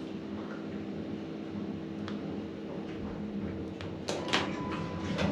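A steady low mechanical hum inside an elevator. About four seconds in come a few sharp clicks, then a short high beep lasting about half a second.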